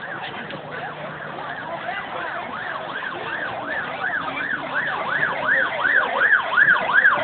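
A siren yelping rapidly, rising and falling about three times a second, faint at first and growing steadily louder as it comes closer.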